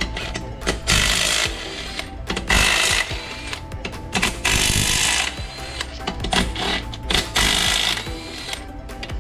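Short repeated bursts of a power tool running fasteners during teardown of a 6L90E automatic transmission, one every second or two, with background music underneath.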